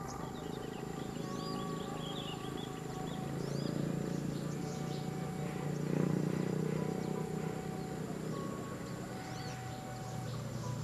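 Birds chirping and insects calling, over a low outdoor rumble that swells about six seconds in.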